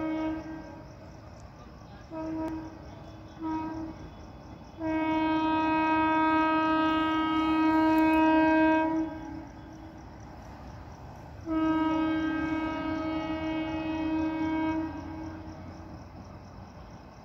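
Express train's locomotive horn sounding on approach: three short blasts, then two long steady blasts of about four seconds each.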